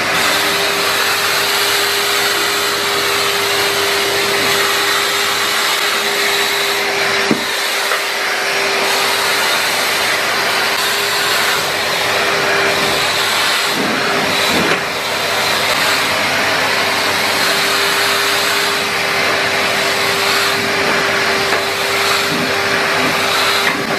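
Henry Wash carpet washer's vacuum motor running steadily with a constant whine, its floor tool sucking water back out of a wet rug. The sound dips briefly a couple of times.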